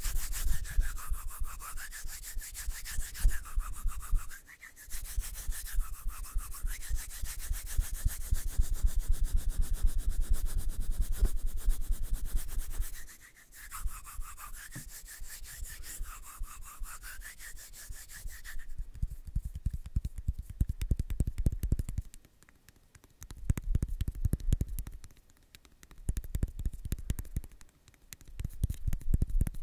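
Close-miked ASMR rubbing and brushing: fast, scratchy rubbing for about the first two-thirds, then deeper bursts of rubbing with short pauses between them.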